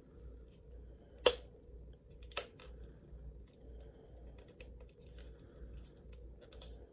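Small handling sounds of lip pencil packaging being worked open by hand: a sharp click about a second in, a second, softer click about a second later, and faint ticks and rustles between.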